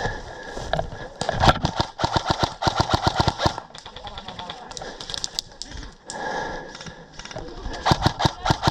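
Airsoft guns firing in rapid full-auto bursts: a run of fast sharp clicks about a second and a half in lasting around two seconds, and another starting near the end.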